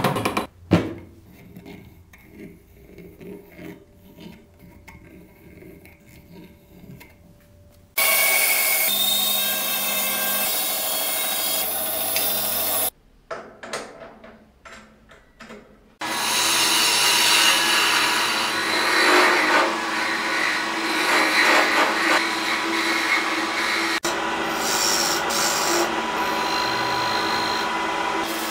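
Woodworking sounds: a hand carving tool scraping and clicking quietly on wood, then from about eight seconds in a loud steady power-tool noise for some five seconds. From about sixteen seconds in comes the continuous noise of a wood lathe spinning a block while a tool cuts into it.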